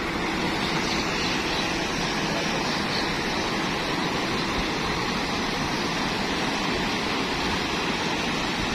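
Fast-flowing floodwater rushing, a steady, even noise of water that does not let up.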